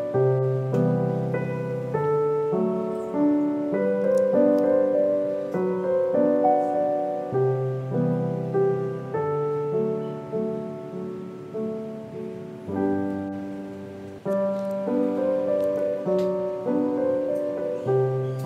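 Background piano music: a slow, gentle melody of notes that strike and fade, over lower chords.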